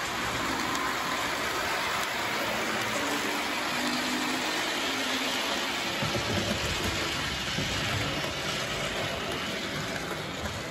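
Model train running on the layout's track, its wheels and electric motor making a steady rushing hiss, with a deeper rumble joining about halfway through.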